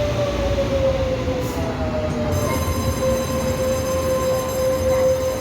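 Train moving along the platform with a steady whine that slides slowly down in pitch over the first couple of seconds and then holds, over a rumble of running noise.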